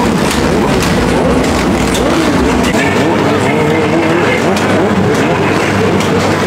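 Motorcycle engines revving up and down, loud and continuous, over the noise of a crowd.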